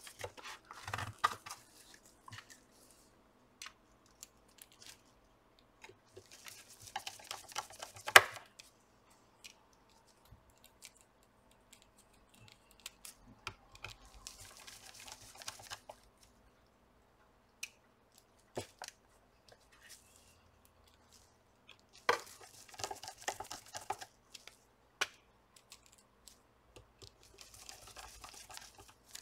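Intermittent handling noise from a soundbar being reassembled by hand: short spells of rustling and small clicks as parts and cables are fitted, with one louder sharp click about eight seconds in.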